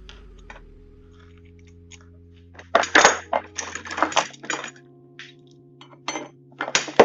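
Metal tools and parts clinking and clattering as they are handled, in clusters of sharp knocks starting about three seconds in, over a steady low hum.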